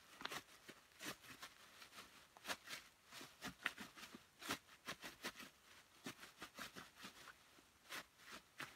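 Plastic garbage bag crinkling and crackling under rubber boots as walnuts inside are rubbed and twisted underfoot to strip off their hulls. The sound is a faint, irregular run of short crackles.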